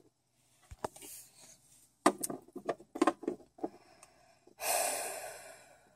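Handling noises of small plastic toys being moved about by hand: scattered light clicks and knocks, then a louder rustle that fades over about a second near the end.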